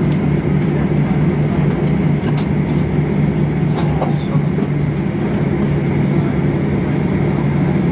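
Steady low drone inside the cabin of a Boeing 737-800, with a faint steady high tone and a few small clicks.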